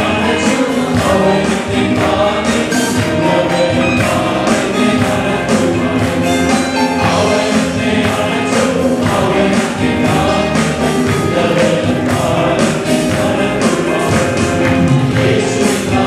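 Worship music: a group of voices singing a song together over instrumental accompaniment with a steady beat.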